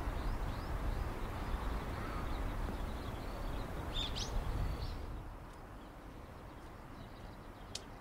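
Rural outdoor ambience: a low rumble, heavier for the first half and easing after about five seconds, with a few short bird chirps about halfway through and one sharp click near the end.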